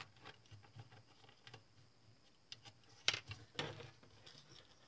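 Faint rapid ticking of a small hex driver turning a fastener on the back of a circuit board, followed by two louder knocks a little after three seconds in as the board is turned over and its aluminium heatsinks handled.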